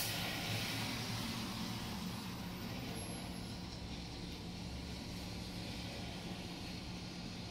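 Traffic at a rain-wet intersection: a natural-gas city bus's engine running as it pulls up and stops beside idling cars, over a steady hiss from the wet road.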